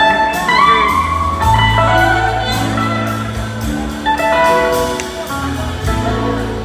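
Live blues-rock band playing loud through a hall PA: electric guitars and horns over bass and drums, with a melodic lead line bending and weaving above steady cymbal strikes.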